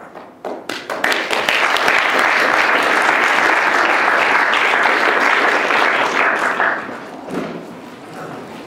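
Audience applauding: a few scattered claps swell into full applause about a second in, which carries on steadily and then dies away near the end.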